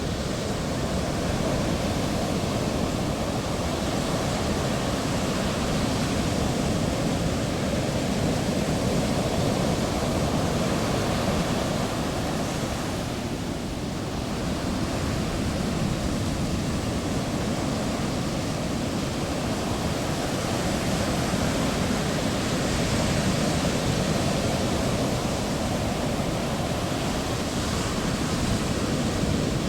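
Heavy ocean waves breaking and washing ashore in a continuous surf roar, the surge swelling and easing slowly every several seconds, with a brief lull about halfway through.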